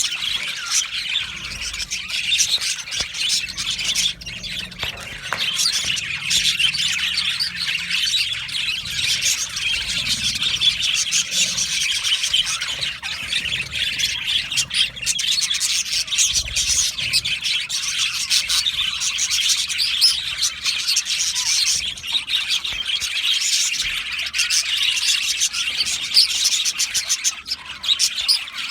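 A colony of budgerigars chattering and warbling all together in an aviary, a dense, continuous mass of quick high chirps and squawks.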